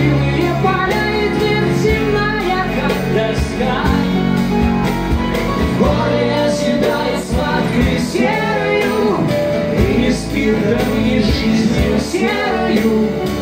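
Acoustic guitar band playing live: three acoustic guitars strummed together, with a male voice singing a bard song over them.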